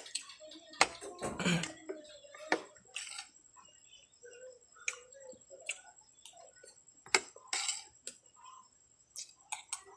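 Eating at the table: a utensil clicks sharply against a plate now and then, with short bursts of chewing and mouth sounds in between.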